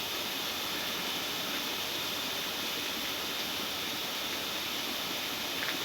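Steady hiss of background noise with no distinct mechanical events, and one faint click near the end.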